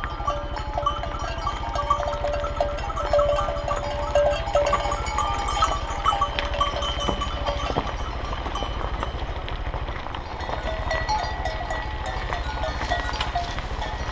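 Cowbells on cattle clanking irregularly as the herd walks past, over the low, steady running of a Honda XR125's single-cylinder engine at slow speed.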